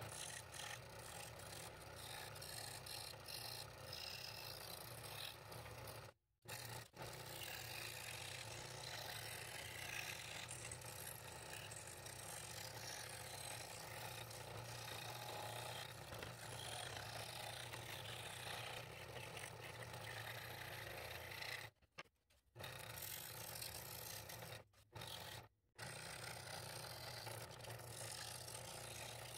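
Scroll saw running and cutting through thin wood: a steady hum and rasp from the reciprocating blade, breaking off briefly a few times.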